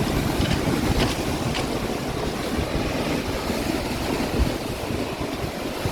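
Wind-driven lake swells crashing, with strong wind buffeting the microphone and a few sharp splashing hits in the first two seconds.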